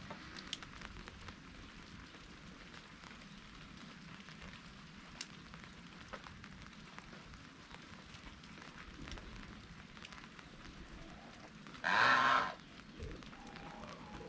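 Light drizzle falling and dripping, a steady hiss scattered with many small drop ticks. About twelve seconds in, a loud, short, rough burst lasting under a second stands out over the rain.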